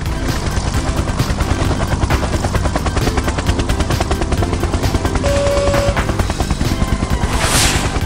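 Cartoon attack-helicopter sound effect: a fast, continuous rattle over background music, with a whoosh near the end.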